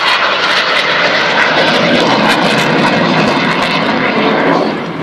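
Hawker Hunter jet fighter making a low, fast pass, its jet engine a loud, steady roar that eases off near the end.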